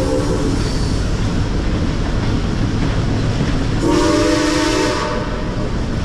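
Chime whistle of a geared steam locomotive blowing twice: a blast ending about half a second in, then a second blast of about a second near the end, over the steady low rumble of the train.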